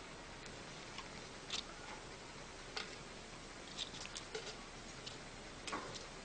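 Faint, scattered light clicks and taps over a steady hiss: single ticks about a second and a half in and near three seconds, a quick cluster of several near four seconds, and one more near the end.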